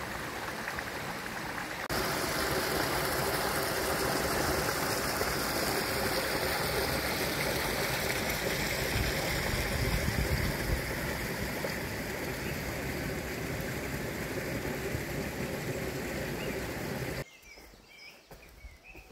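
A small woodland stream rushing over rocks, swollen with runoff, a steady rush of water that gets louder at a cut about two seconds in. Near the end it drops away suddenly to much quieter woodland with a few faint bird chirps.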